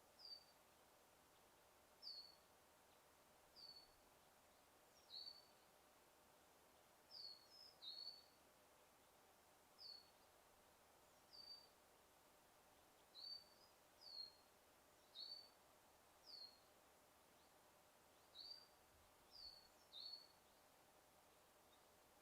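Small songbirds calling in a forest: a steady run of short, high chirps, roughly one every second, some sliding down in pitch and some sliding up, over faint background hiss.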